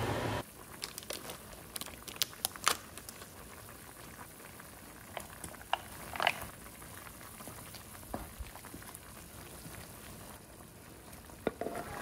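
Meat and vegetables simmering in a pan, with a wooden spoon scraping diced carrots in from a bowl and stirring, giving scattered clicks and knocks against the pan and bowl. A steady rushing noise cuts off about half a second in.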